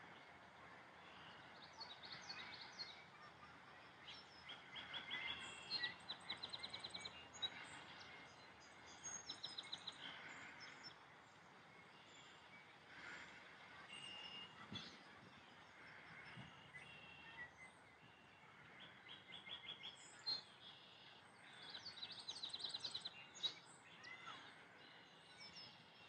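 Faint meadow birdsong from red-winged blackbirds, Carolina chickadee, eastern towhee and American goldfinch, with short trilled phrases coming every few seconds.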